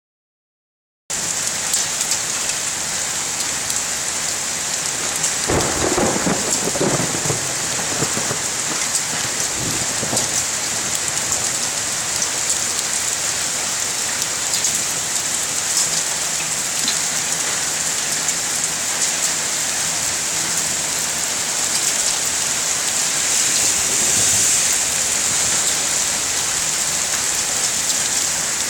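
Heavy rain pouring steadily during a thunderstorm, with a rumble of thunder about six seconds in and a fainter one a few seconds later.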